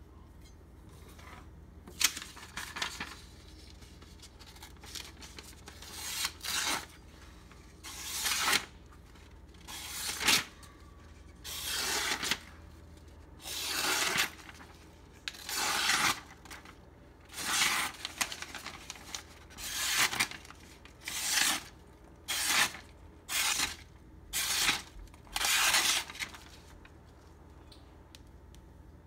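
Custom-made cleaver slicing through a hand-held sheet of lined notebook paper, over a dozen short papery swishes, about one every one to two seconds, stopping near the end. This is a paper-slicing test of the blade's sharpness.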